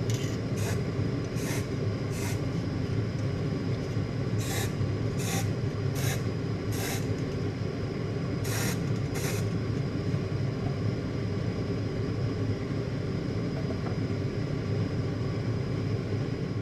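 Short hissing bursts, like an aerosol spray can being pressed, about ten of them in the first ten seconds, over a steady low rumble.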